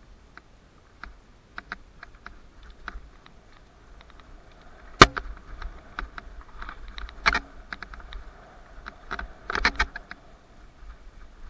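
Mountain bike rattling and clicking as it rides over a rough dirt trail: chain and components clatter over bumps. There is one sharp knock about halfway through and clusters of rattles after it.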